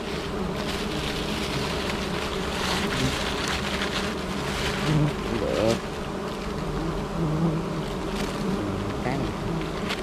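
Steady buzzing of many honeybees swarming around their hive while its comb is being cut from a tree branch. A single bee flies close past, its pitch rising briefly, about five and a half seconds in.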